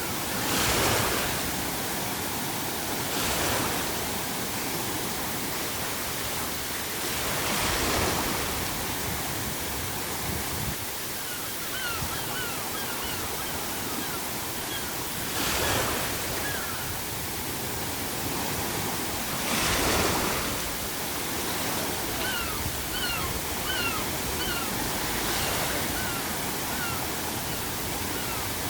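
Sea waves breaking on the shore, a steady surf wash that swells about every four to five seconds as each wave crashes. Gulls call faintly in short runs of calls, near the middle and again near the end.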